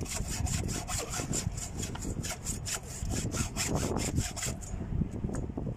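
Hand hacksaw cutting through a thick 120 mm power cable clamped in a stand, in quick, even back-and-forth strokes that stop about a second before the end. The cutting is slow going through a cable this size.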